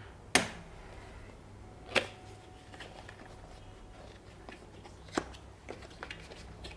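Paperboard product box being opened by hand: a few sharp clicks and snaps of the card flaps and tabs, the loudest about half a second in, another near two seconds and one past five seconds, with light handling rustle between.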